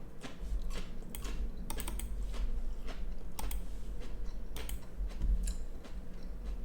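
Computer keyboard being typed on: irregular key clicks, over a steady low hum.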